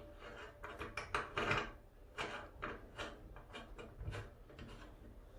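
Scattered small clicks and light scraping as a faucet aerator (strainer) is screwed back onto the bathroom tap spout by hand.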